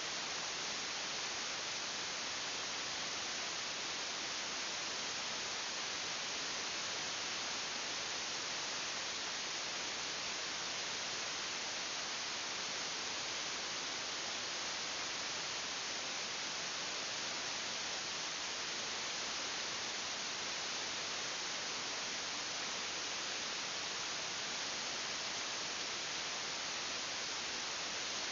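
A steady, even hiss that does not change in level or pitch.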